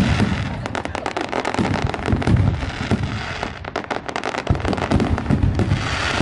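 Aerial fireworks bursting overhead: a dense, rapid crackling of many sharp pops, mixed with repeated low booms and a rush of hiss near the start and again near the end.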